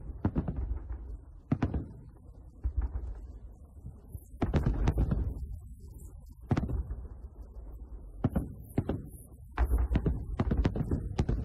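Aerial firework shells bursting in a festive salute: a string of sharp bangs at uneven intervals over a low rumble, coming thicker a little before halfway and again near the end.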